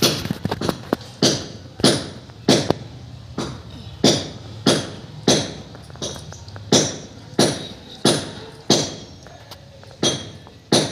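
Metal struck in a steady rhythm, about three strikes every two seconds, each giving a short bright ring that dies away.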